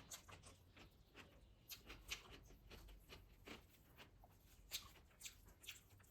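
Faint eating sounds: soft, irregular clicks and smacks of chewing and handling biryani, several a second, with a sharper click about two seconds in and another near five seconds.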